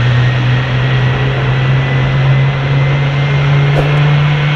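Boeing 777-300ER airliner's GE90 jet engines running during pushback: a steady, loud low drone with a faint high whine, both rising slowly in pitch.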